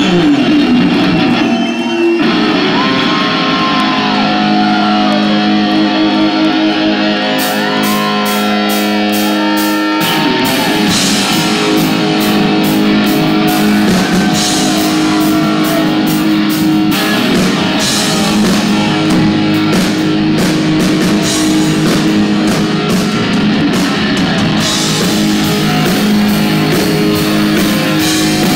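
Live rock band playing loud through a concert PA: electric guitar with bent, sustained notes, cymbals coming in about seven seconds in, and the full band with drums from about ten seconds.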